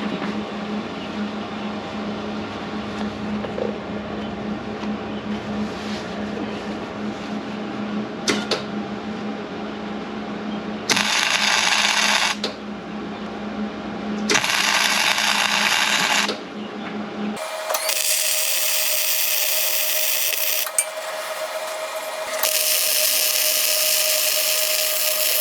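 Electric arc welding steel washers on: a steady electrical hum, then two short bursts of crackling arc about 11 and 14 seconds in, followed by longer bursts of welding crackle with a steady tone under them to the end.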